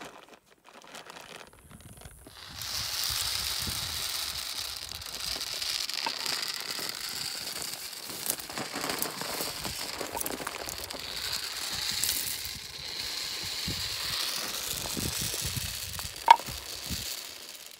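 Shelled deer corn pouring from a plastic bag into the top of a pipe feeder: a steady rattling hiss of kernels sliding down the pipe with the bag crinkling, starting a couple of seconds in. A single sharp click comes near the end.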